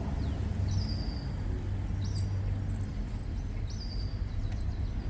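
Street ambience: a steady low traffic rumble, with a short high chirp sounding three times about every second and a half.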